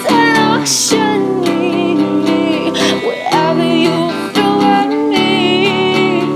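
Music: a song with strummed acoustic guitar and a singing voice holding long notes with vibrato.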